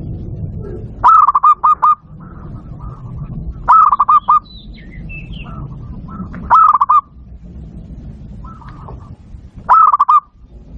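Zebra dove (perkutut) of the Bangkok type cooing: four loud phrases about every three seconds, each a quick run of about four rolling notes. Fainter cooing and a low rumble sit between the phrases.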